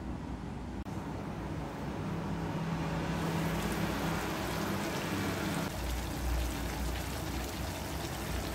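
Pork and vegetable stew simmering in a pan on an induction cooktop: a steady bubbling hiss, with a low hum through the middle.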